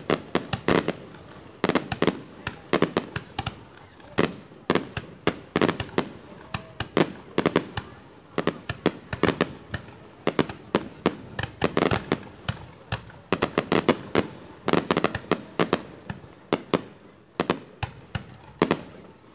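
Fireworks display of rockets launching and bursting: an irregular series of sharp bangs, often several a second.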